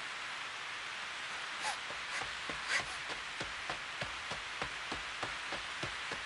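Steady rain falling, with single drops splashing close by in quick, irregular ticks from about a second and a half in.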